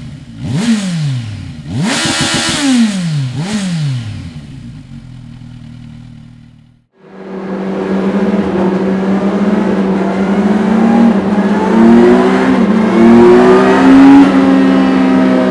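Kawasaki Versys 1000's inline-four engine through a Dominator aftermarket exhaust: several quick throttle blips, each rising and falling, then settling to idle. After a sudden cut about seven seconds in, it runs loud and steady with the engine note climbing slowly in steps.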